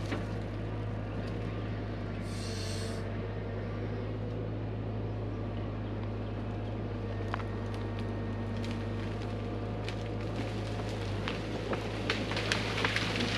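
Hyundai HX85A excavator's engine running steadily under hydraulic work, with a brief hiss about two seconds in. Scattered clicks, with a cluster of sharp cracks near the end.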